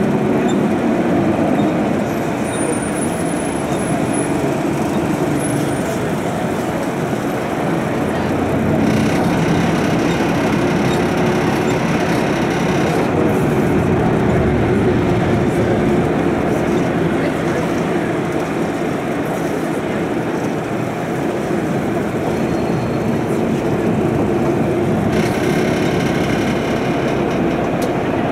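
City bus running through a road tunnel, heard from on board: a steady drone of engine and tyre noise. A brighter hiss swells in about nine seconds in and again near the end.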